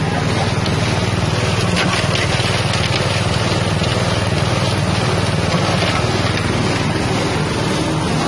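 Belt-driven spice grinding mill powered by a 6.5 hp engine, running steadily while it grinds galangal.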